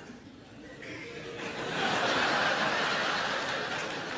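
Audience laughing, the laughter swelling about a second and a half in and easing off slightly near the end.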